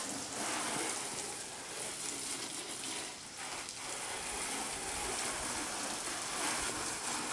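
Water from a garden hose's pistol-grip spray nozzle spattering on the side of an SUV in a wide spray, a steady hiss of water on the car body.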